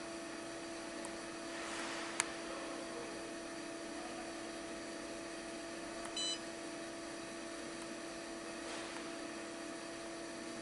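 Steady hum, with a sharp click about two seconds in. A little past halfway there is one short electronic beep from a Siemens Simatic HMI touch-panel key being pressed with a pen.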